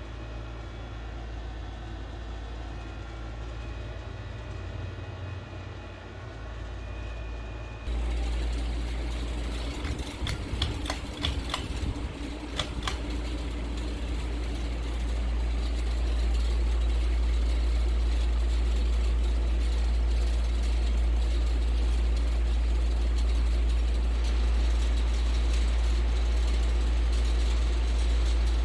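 Ceiling fan running: a steady low motor hum with air noise. About eight seconds in the sound changes abruptly, a cluster of clicks follows, and from about sixteen seconds on the hum is steadier and louder.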